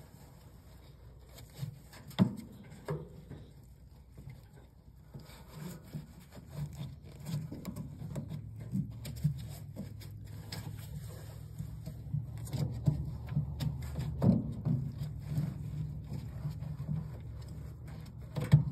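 A rubber drive belt is worked by hand onto the motor pulley of a Speed Queen washer, with close rubbing and scraping and scattered knocks. The sharpest knocks come about two seconds in, about two thirds of the way through and, loudest, just before the end.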